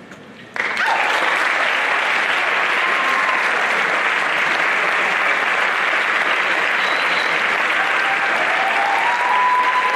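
Audience applauding in a large room, starting suddenly about half a second in as a brass piece ends and holding steady, with a few whoops near the end.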